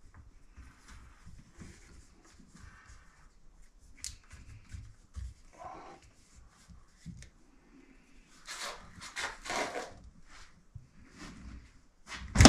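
Plastic filter-housing wrench working on a stuck whole-house sediment filter housing: quiet rubbing and creaking of the wrench against the housing, louder scraping a few seconds before the end, then one loud sharp crack near the end as the housing breaks free.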